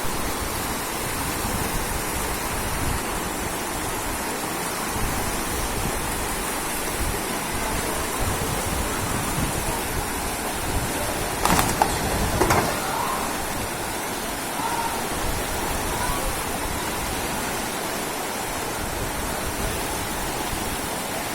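Steady rush of floodwater. A little past halfway there are two sharp knocks about a second apart.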